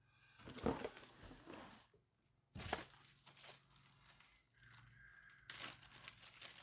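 Plastic packaging being handled during unboxing, crinkling and rustling in irregular bursts, with a sharp crackle near the middle and another near the end.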